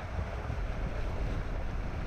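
Shallow creek water rushing over stones, with wind buffeting the microphone in a steady low rumble.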